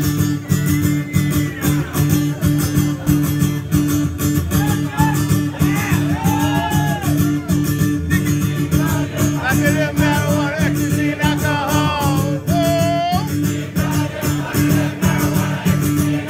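Live band playing loud: electric guitar over a steady beat, with voices rising and falling above the music.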